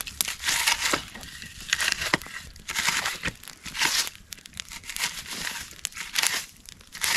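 A freshly lit campfire crackling and hissing as flames take hold in cardboard and split wood, with irregular bursts of crackle and sharp pops.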